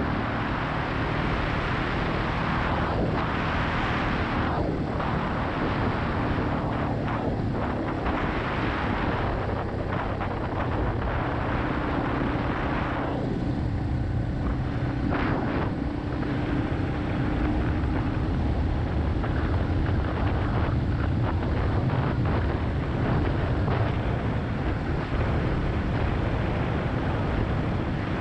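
Yamaha XT250's air-cooled single-cylinder engine running steadily under way, with heavy wind noise on the microphone that eases for a few seconds midway.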